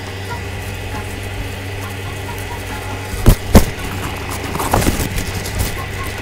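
Kitchen knife on a wooden cutting board: two sharp knocks a little after halfway, then the crisp crunch of the blade cutting through fresh spinach stems, over a steady low hum.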